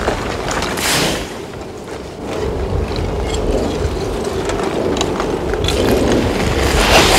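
Front of a blocky Etna lava flow advancing: the cooling crust cracks and clinks like breaking glass over a low rumble. Louder crashes of shifting blocks come about a second in and again near the end.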